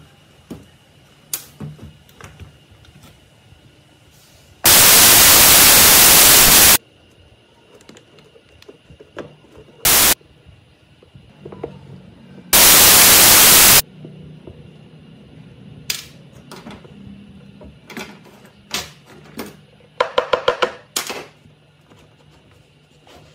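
Three bursts of loud hissing: one of about two seconds, a brief one, then one of about a second, among scattered light clicks and knocks. A quick rattling run of clicks follows near the end.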